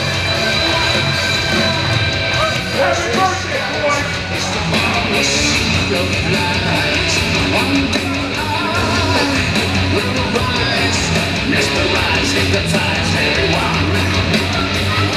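Loud heavy rock music with electric guitar and shouted vocals, played as a wrestler's ring entrance theme.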